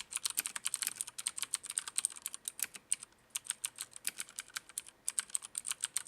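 Typing on a Filco Majestouch 2 Tenkeyless mechanical keyboard with Cherry MX switches: a fast, uneven run of key clicks, broken by short pauses about three and five seconds in.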